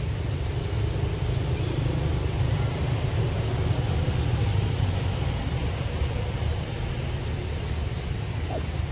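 Steady, flickering low rumble of wind buffeting the microphone, over a faint even outdoor hiss.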